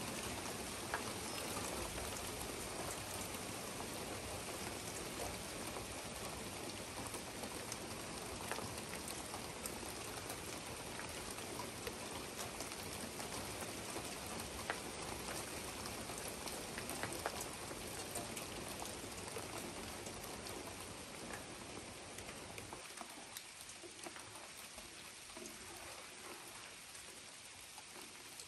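Heavy rain falling steadily, with scattered individual drops tapping close by. Near the end its deeper part falls away and it grows slightly quieter.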